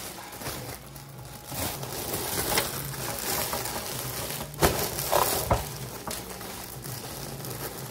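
Thin plastic slow-cooker liner crinkling and rustling as it is spread over the rim of a crock pot and smoothed down, with a few sharper crackles about halfway through.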